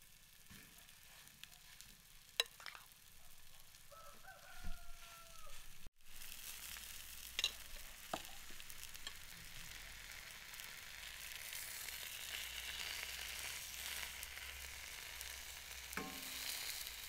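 Buckwheat pancake batter frying in a pan on a wood stove: a sizzle that starts after a cut about six seconds in and slowly grows louder, with a few sharp clicks. Before the cut a rooster crows once, faintly.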